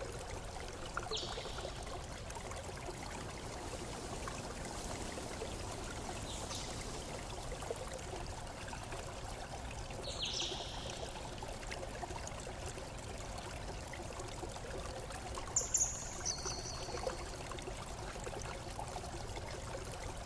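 Water running steadily, like a small stream or trickle, with a few short bird calls. The calls come about a second in, around six and ten seconds in as quick falling chirps, and around fifteen to sixteen seconds in as two higher notes.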